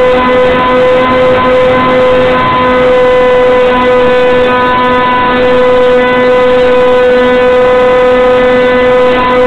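Small electric motor and propeller of a Hobbyzone Stratocam model airplane running at a steady speed, heard from the plane's own onboard camera: a constant drone at one pitch over a rushing hiss of air.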